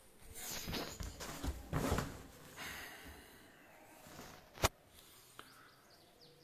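Handling noise of a phone being moved and settled in the hand: uneven rustling and soft bumps for the first couple of seconds, then quieter, with one sharp click a little past the middle.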